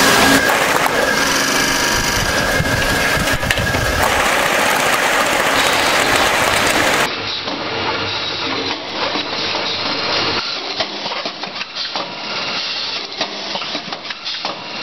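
Powder filling and packaging machinery running, a dense mechanical clatter and hum. About halfway through the sound changes abruptly to a quieter, finer rattling of many small clicks.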